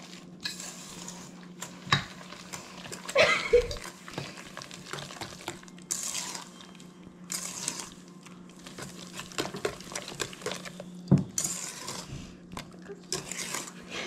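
Wire whisk stirring a thick mash of bananas, sugar and eggs in a stainless steel bowl: repeated wet swishes, with the wires clinking sharply against the metal side a couple of times.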